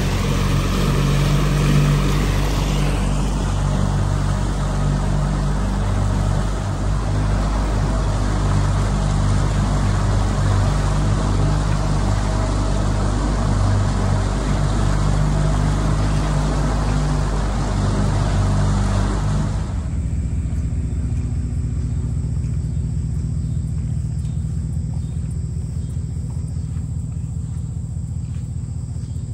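A jon boat's outboard motor running under way beneath a broad rushing noise. About twenty seconds in, the rushing stops and the motor drops back to a low, pulsing idle.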